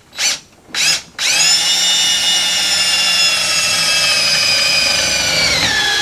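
Electric drill boring a mounting hole through a car's steel firewall: two short trigger blips, then a steady high whine for about five seconds, its pitch dropping as it winds down near the end.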